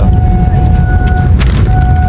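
Background music over a steady low rumble, with held steady tones and a brief rustle about one and a half seconds in.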